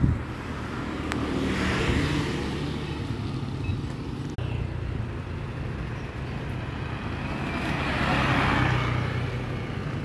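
Road traffic on a busy main road: a steady low engine drone with two vehicles swelling past, one about two seconds in and another near the end.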